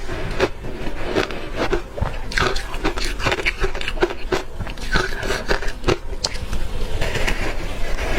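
Hard ice chunks coated in matcha powder being bitten and chewed close to the microphone: dense, irregular crunching and cracking, bite after bite.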